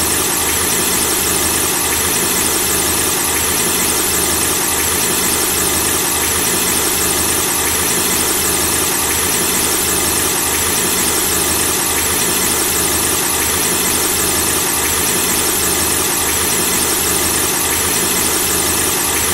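Car engine running steadily, with a continuous squeaking over it.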